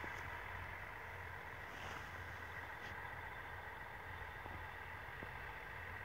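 Distant diesel passenger train running slowly as it slows for signals, heard across open fields as a steady low engine hum with a faint even rush over it.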